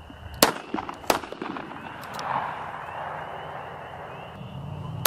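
Shotgun shots at clay targets: two sharp reports about two-thirds of a second apart shortly after the start, and another right at the end.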